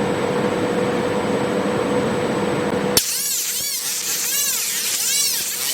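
Pulsed industrial laser cleaner ablating weld residue: a steady loud hiss with a constant whine. About three seconds in it cuts sharply to a pulsing sound that sweeps up and down in pitch roughly twice a second.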